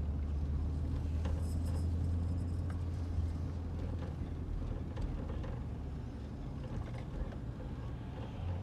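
A car's steady low road and engine rumble, heard from inside the moving car.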